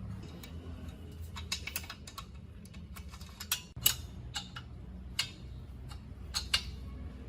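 Irregular sharp clicks and taps, a dozen or so, over a low steady hum.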